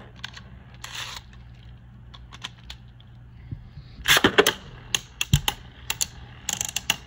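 Beyblade Burst spinning tops in a plastic stadium: a few light clicks while one top spins, then a dense clatter about four seconds in as a second top is launched in, followed by a string of sharp plastic clicks and clacks as the two tops hit each other.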